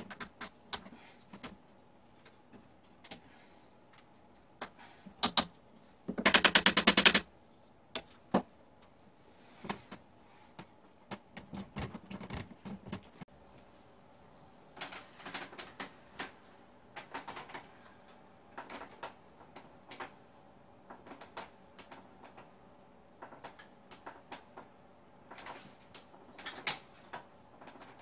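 Scattered wood-on-wood clicks and knocks from the parts of a wooden rocking chair being fitted and handled, with a loud rattling clatter lasting about a second around six seconds in. In the second half the clicks come in short clusters as the chair is sat in.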